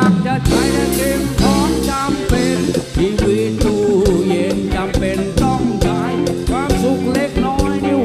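Live Thai 'phleng phuea chiwit' rock band playing: a male singer over electric guitar, bass and a drum kit keeping a steady beat.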